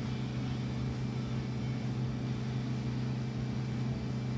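Inboard engine of a Moomba Max wake boat running steadily under way at surf speed, a constant low hum with water rushing over the hull and wake.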